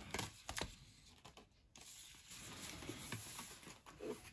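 Faint handling sounds of foil booster packs being moved: a few light clicks and a soft rustle.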